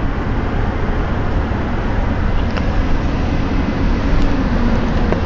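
Road noise inside a moving car's cabin in a road tunnel: a steady low rumble of tyres and engine, with a faint hum that rises and falls in the middle.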